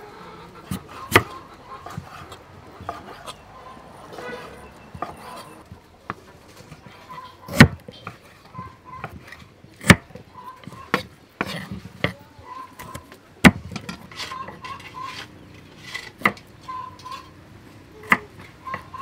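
Crinkle-cut knife chopping a raw potato on a wooden chopping board: sharp knocks of the blade hitting the board every couple of seconds, with quieter cutting and tapping between them.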